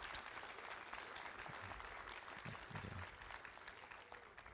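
Audience applauding: a steady patter of many hand claps that thins out near the end.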